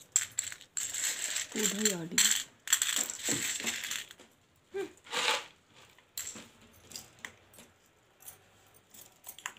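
Dry chickpeas clicking and clattering on a concrete window sill as a rhesus macaque and a person's hand pick them over. The clatter is busiest in the first four seconds and thins to scattered clicks after that.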